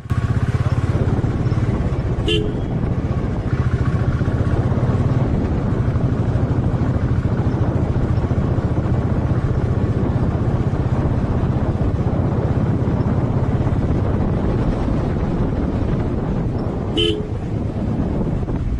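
Motorcycle engine running steadily at low speed, with two short horn toots, one about two seconds in and one near the end.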